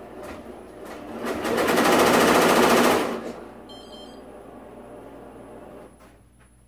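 Tajima multi-head embroidery machine stitching at speed, a loud fast rattle of needles. It is running the outline stitch that tacks the mask pieces together. The rattle swells about a second in and dies away after about three seconds, followed by a few short high beeps.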